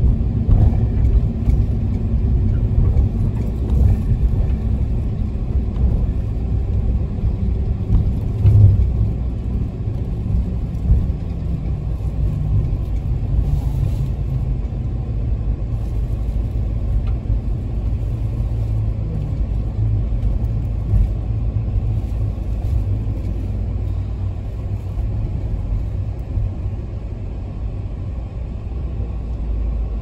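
Toyota HiAce minibus running, heard from inside the passenger cabin: a steady low rumble of its 2.8-litre diesel engine and road noise while driving. There is a low thump about nine seconds in and a few faint clicks.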